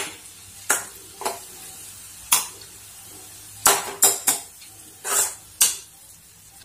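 Metal spoon scraping and knocking against a metal kadai as cooked green beans are stirred, in about eight separate, irregular strokes.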